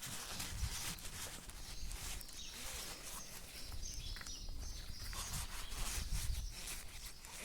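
Birds singing in the background of a rural outdoor ambience, with scattered small clicks and rubbing from parts being handled.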